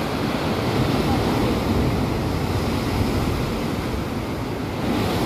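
Sea surf washing against a rocky lava shore, a steady rushing, with wind buffeting the microphone.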